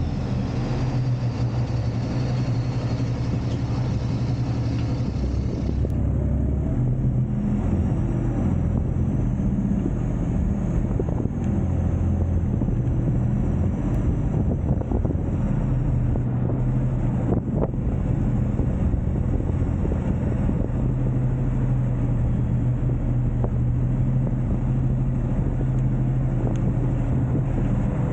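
Semi truck's diesel engine running steadily at a low, even idle.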